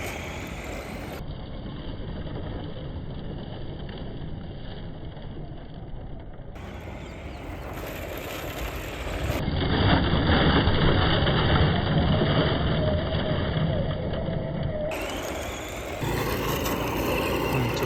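Arrma Senton short-course RC truck being driven, its electric motor running and its tyres on the ground, heard across several clips cut together, with the sound changing abruptly at each cut.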